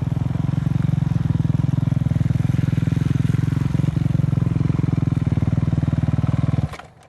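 Dirt bike engine running at a steady speed with a fast, even pulsing, then cutting off abruptly near the end.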